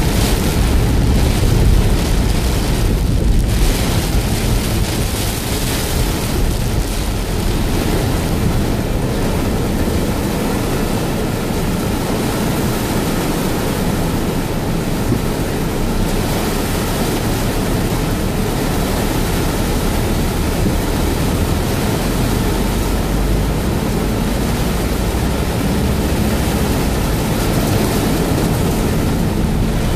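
Heavy rain beating on a car's windshield and roof, heard from inside the car as a steady, loud hiss.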